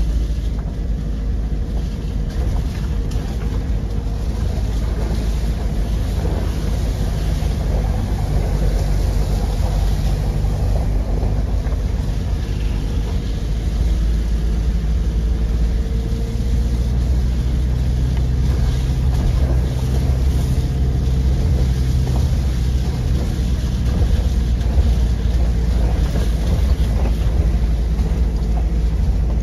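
A car driving slowly along a wet, puddled lane: steady low engine and road rumble with tyre noise. The engine hum shifts in pitch about halfway through.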